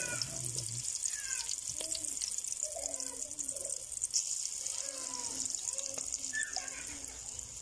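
Pakora batter frying in hot oil in an aluminium karahi: a steady sizzle thick with fine crackling.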